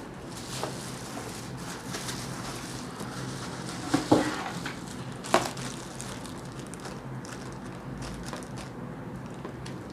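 Plastic bag crinkling and rustling as it is pulled off an air fryer, with a few sharp knocks about four and five seconds in.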